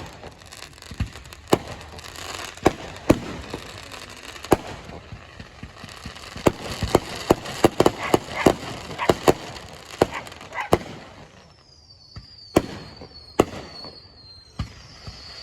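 Fireworks going off: irregular sharp bangs over a crackling hiss, coming thick and fast from about six to eleven seconds in. Near the end a high, wavering whistle comes in, with a few more bangs.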